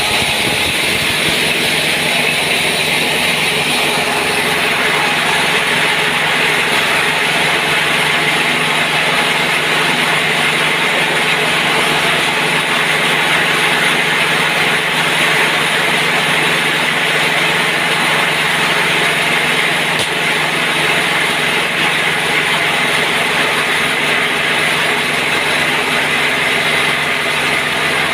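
Single-cylinder-style diesel engine driving a coffee bean hulling mill, running steadily at a constant speed with a dense mechanical rattle and hiss over the engine's hum.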